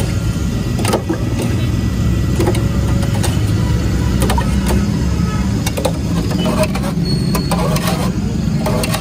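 Steady low rumble of road traffic, with scattered clinks and knocks of a steel ladle and spoons against steel pots as chutney is ladled into a plastic bag.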